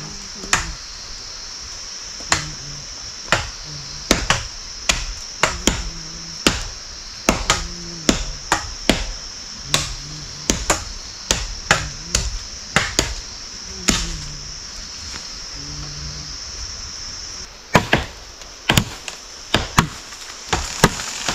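Wood being chopped by hand with a blade: sharp separate strokes, roughly one a second and irregular, coming quicker over the last few seconds.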